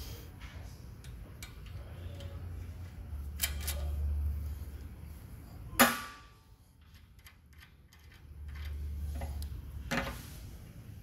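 A hammer strikes the steel steering arm and tie-rod end of a truck's front suspension. One sharp, briefly ringing metallic blow lands about six seconds in, with lighter metal clinks before it and near the end.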